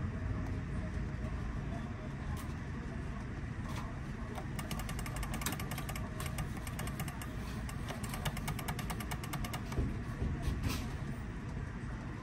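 Arcade prize-game cabinet: a rapid run of ticks from about five to ten seconds in as its winnings tally counts up, over a steady low rumble.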